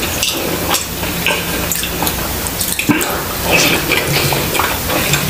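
Close-miked wet chewing and mouth sounds of a person eating a battered chile relleno by hand: a steady stream of small, wet smacking clicks.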